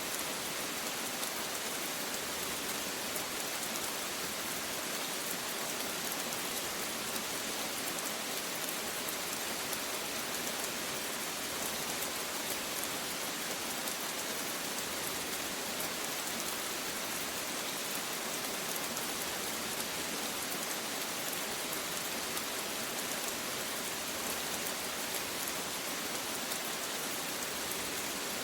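Steady rain falling, an even hiss of drops on a surface with no thunder and no change in strength.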